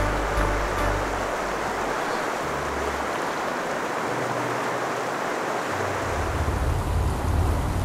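Fast, shallow river water rushing over a rocky bed: a steady, even hiss, with a low rumble at the start that comes back about six seconds in.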